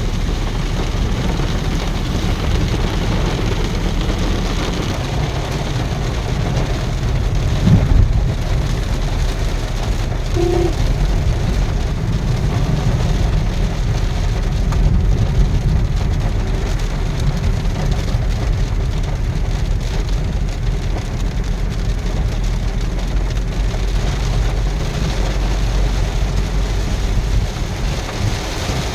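Heavy rain on a moving vehicle, with steady road and engine noise. A thump comes about eight seconds in, and a brief pitched tone about two seconds later.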